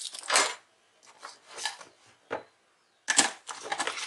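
Short scraping, rustling strokes of hand work over an opened laptop on a bench, with one sharp tap a little after two seconds in.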